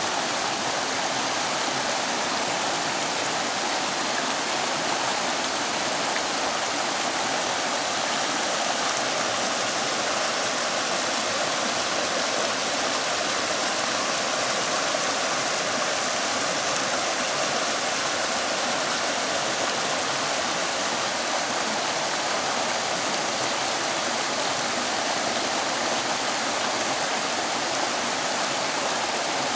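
Rushing water of a rocky mountain stream tumbling over boulders and small cascades, a steady, even rush.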